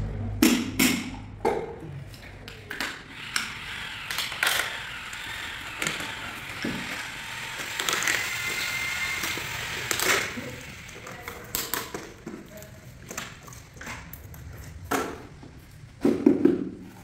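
Tile-leveling clips and wedges being set on large porcelain floor tiles: scattered hard clicks and knocks of plastic on tile. About halfway through there is a brief high squeak as leveling pliers force a wedge into a clip, and a few heavier knocks come near the end.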